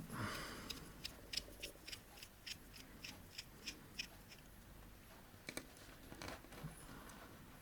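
Tiny precision screwdriver turning out a small screw on the back of a Casio watch: a run of light clicks, about three a second, then a few scattered clicks later on.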